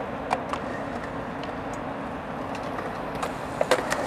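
Skateboard wheels rolling steadily over a concrete skatepark ramp, with a few sharp clacks of the board, two loud ones close together near the end.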